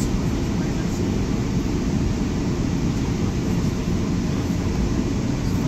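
Commuter train running at speed, heard from inside the passenger coach: a steady low rolling noise of wheels on track and car body, with no distinct clicks or horn.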